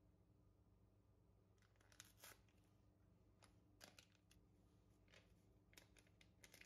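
Near silence: faint room tone with a few scattered soft clicks and light rustles of kitchen handling.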